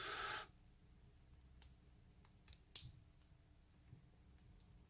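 A short hiss at the very start, then faint, scattered small metallic clicks as a pin-tumbler padlock's plug is slowly eased out of the lock body with a follower.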